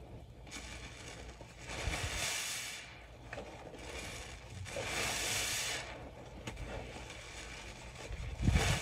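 Rubber-gloved hands squeezing a suds-soaked porous bath sponge in thick cleaner foam: wet squishes with hissing, crackling suds, about two and five seconds in, and a louder squelch with a low thud near the end.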